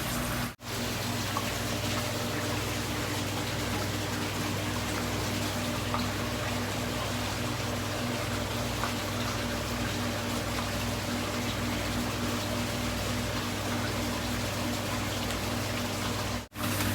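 Steady running water with a constant electric hum underneath, cut off briefly twice.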